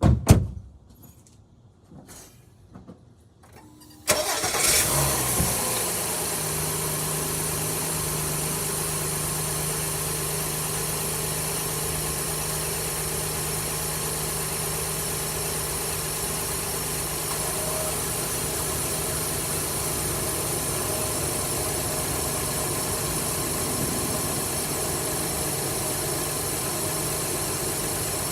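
A loud thump, then a few faint clicks, then a car engine starts about four seconds in, flares briefly and settles into a steady idle.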